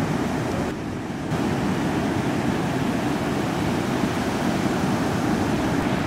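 Ocean surf breaking and washing, with wind rushing on the microphone. The noise stays steady apart from a brief dip about a second in.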